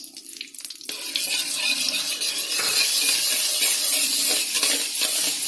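Granulated sugar poured in a steady stream into a metal wok of hot melted ghee, making a continuous hiss that starts about a second in.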